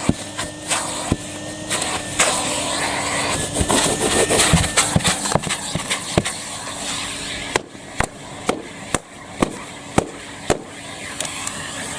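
Numatic Hetty vacuum cleaner running with a steady hum under a rushing noise, with many sharp clicks and knocks throughout as it works over car rugs. The rushing noise drops about eight seconds in while the hum and clicking go on.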